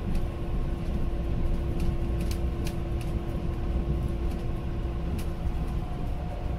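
Steady running rumble of a moving Mugunghwa passenger train, heard from inside the carriage. A steady hum runs under it, and a few sharp clicks come about two to three seconds in and again after five seconds.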